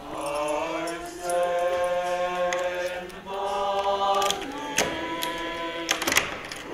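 A group of voices singing long held chords, with a few sharp clicks and knocks near the end.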